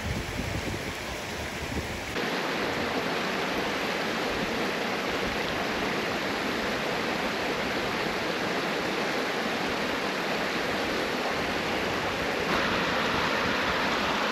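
Steady rush of a mountain river spilling over rocks into a pool. About two seconds in, a low rumble drops away and it becomes an even, brighter rush.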